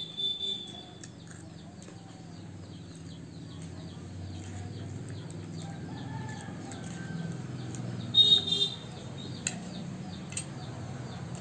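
Birds calling in the background: a held high call at the start, scattered small chirps, and one loud short call about eight seconds in. A low steady rumble runs underneath, and there are two light clicks of spoons against plates near the end.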